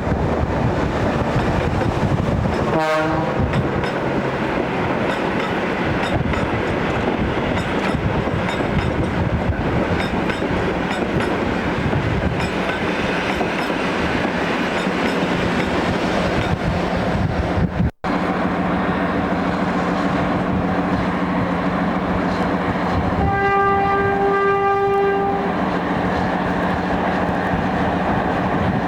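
Diesel locomotive running with a steady engine drone, giving a short horn toot about three seconds in and a longer horn blast of about two seconds near the end. The sound cuts out for an instant about halfway through.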